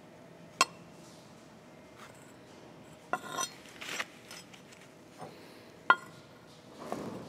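Thin punched steel sheet handled against the steel die and frame of a hydraulic hole punch: sharp metallic clinks, one about half a second in and a louder one near six seconds, with short stretches of metal scraping and sliding between.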